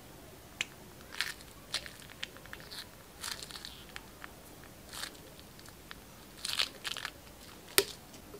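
Scattered crackles and sharp clicks as a plastic piping bag of bead-filled glue is squeezed out onto a plate, with short crunchy bursts in between and the loudest click near the end.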